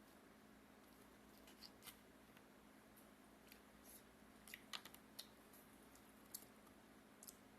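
Near silence: a faint steady low hum, with a scattering of faint sharp clicks and ticks from small handling noises.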